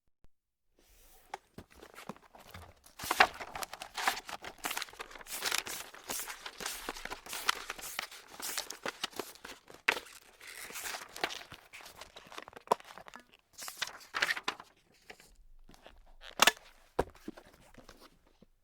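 Paper being crumpled and crinkled by hand: a dense run of crackles and sharp snaps, starting about a second in and pausing briefly near the end before a few more crackles.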